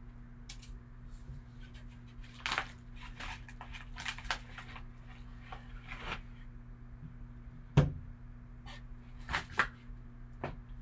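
Trading cards and their packaging being handled: scattered short rustles and slides, with one sharp knock about eight seconds in, over a steady low hum.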